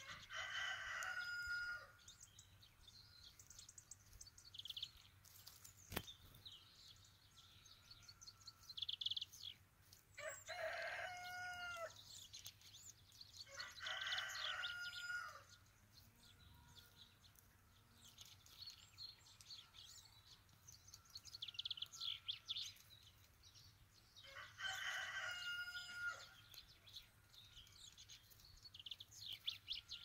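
A rooster crowing four times, each crow lasting about a second and a half, over steady high-pitched chirping of small birds.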